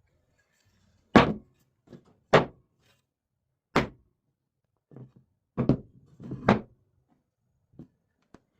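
Wood being struck by a hand tool: about five loud, sharp knocks at irregular intervals of a second or so, with a few quieter taps between.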